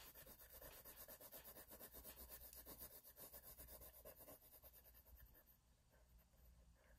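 Coloured pencil shading back and forth on paper: a faint, rhythmic scratching of several strokes a second that grows quieter about five seconds in.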